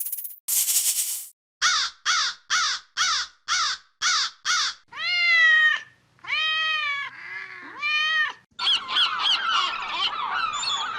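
Bird calls. Seven short calls falling in pitch come in quick succession, then several longer drawn-out calls, and near the end many overlapping calls at once. A brief hissing noise opens it.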